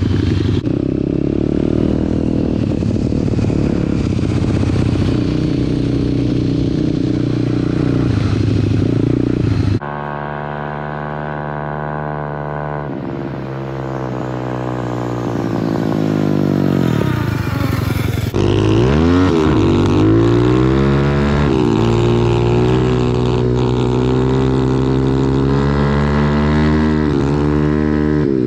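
Pit bike engines running on the ice in three cut-together stretches: first a steady, even engine note; then, from about ten seconds, the engine note falling away as it slows; then, from about eighteen seconds, the revs climbing and dropping again and again as a bike is ridden hard.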